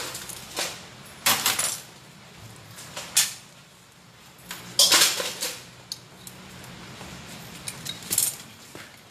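Metal hand tools clinking and clattering in several short, irregular bursts, the loudest about five seconds in, as tools are picked up, rummaged through and set down.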